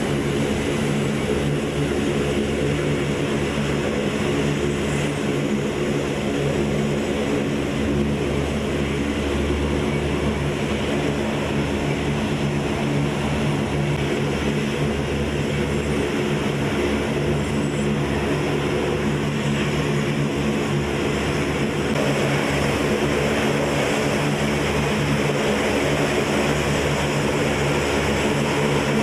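Turboprop engines of a C-130J Hercules running steadily, a constant propeller drone with several even tones over a hiss. It gets a little louder and brighter about two-thirds of the way through.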